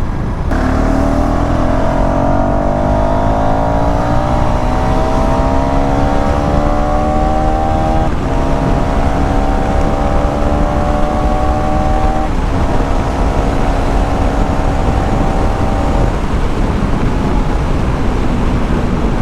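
KTM Duke 390 single-cylinder engine pulling hard while ridden, its pitch climbing through the gears with quick upshifts about 8 and 12 seconds in, then holding a steady cruise and easing off. Heavy wind rumble sits under the engine.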